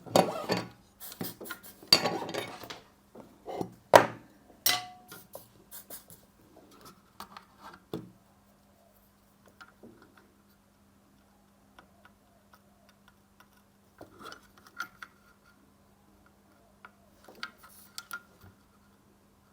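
Small hard objects and tools clattering and clicking as they are handled on a workbench, busy for the first few seconds and then only occasional light ticks. A faint steady hum sets in about four seconds in.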